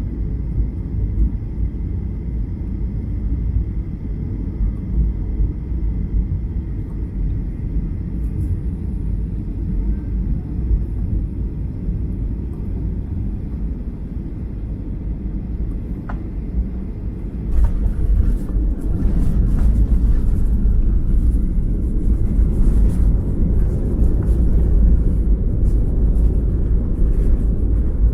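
Airliner cabin rumble from engines and airflow. About two-thirds of the way through it suddenly grows louder, with rattling and clicking of cabin fittings, as the wheels touch down and roll on the runway.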